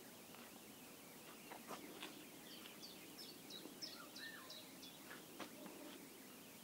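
Quiet outdoor ambience with a small bird chirping: a quick run of about seven short high notes in the middle, with one lower whistled note among them.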